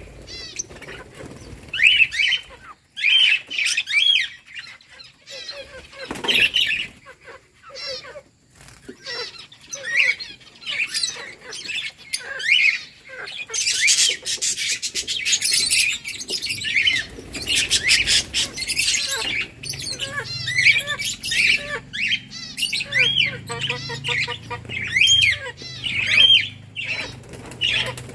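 A group of peach-faced lovebirds chattering with rapid, high, sharp chirps and squawks, busiest in the middle.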